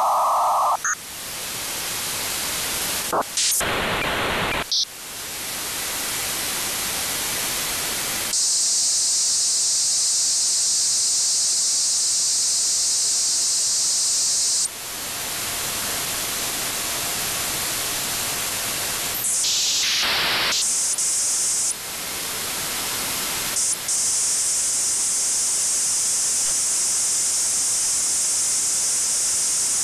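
Software-defined radio receiver's audio output hissing with static as it is retuned across L-band Inmarsat satellite signals. The hiss changes abruptly in pitch and brightness several times, dips briefly a few times, and sweeps down and back up once past the middle.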